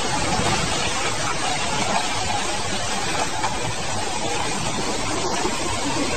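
A steady, even noise with no clear pitch, recorded outdoors on an amateur phone camera: the unexplained 'sound from the sky' that the person recording keeps asking about.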